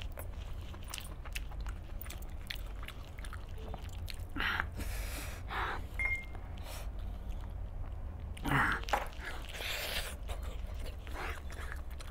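Close-up eating sounds: a man biting and chewing chicken pulled off the bone, with small wet clicks of mouth and fingers, and louder squelching of hands tearing a whole chicken in gravy about four seconds in and again past the middle.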